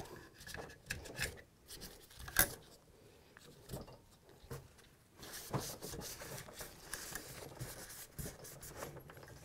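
Faint scraping and rubbing of a small plastic tool and paper towel inside an AR-15 upper receiver, cleaning fouling out of the gas key raceway, with a few light clicks and taps. From about halfway through the rubbing becomes steadier.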